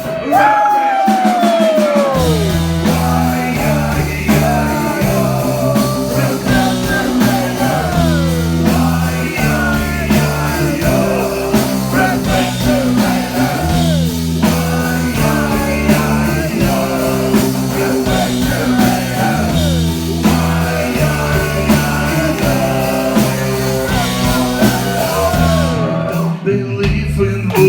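Live rock band playing an instrumental stretch of a song: a lead line with many sliding, falling notes over a bass line that steps between held notes.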